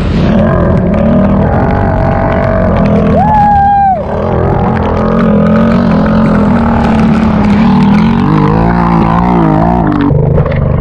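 Off-road vehicle engine running loud under throttle while mud riding, its pitch rising and falling in wavers near the end. A brief high tone sounds about three seconds in.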